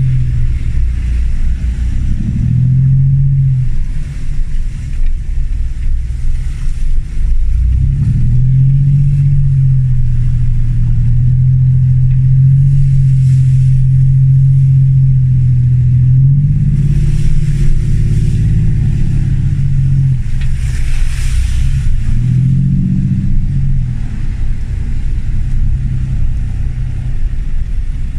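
Land Rover Discovery 1's 300Tdi 2.5-litre four-cylinder turbodiesel engine pulling at low speed, revving up and easing off several times.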